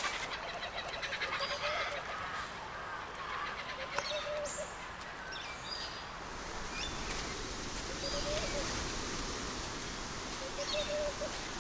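Birds calling now and then, short separate calls over a steady background hiss of outdoor ambience.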